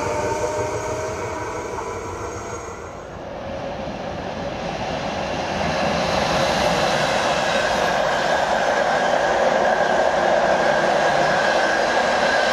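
An electric train's running noise fades out. Then a train hauled by an NS TRAXX electric locomotive, with single-deck intercity coaches, passes, its rolling rumble rising about a third of the way in and holding steady with a thin whine over it.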